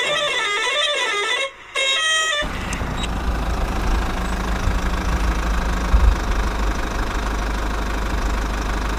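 Electronic toy-vehicle sound effects: a wavering, siren-like warble, then a few short beeping notes. From about two and a half seconds in, a steady, engine-like low rumble with hiss takes over.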